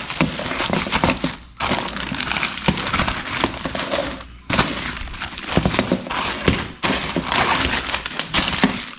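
A tripod in plastic wrap being slid out of a nylon drawstring bag and handled, with packaging alongside: continuous rustling and crinkling, broken by many small knocks and clunks.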